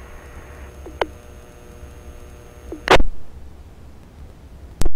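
Baofeng UV-5R handheld radio scanner between fire-dispatch transmissions: low static hiss and hum. It is broken by sharp squelch clicks, a short one about a second in, a loud one about three seconds in, and another just before the end.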